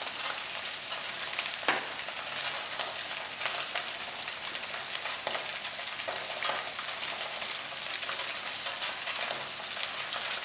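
Sea bream fillets frying skin-side down in olive oil in a very hot pan: a steady high sizzle with scattered crackles and a few louder pops.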